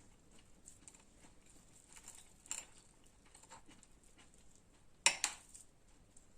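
Quiet kitchen handling sounds: small clicks and light taps of utensils and dishes, a brief louder scrape about two and a half seconds in, and a louder double crunch or scrape about five seconds in.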